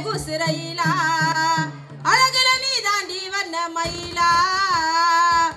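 A woman singing a Tamil folk song through a microphone and PA, her melody wavering with vibrato, over the drum beats of a naiyandi melam folk band. The singing breaks briefly twice.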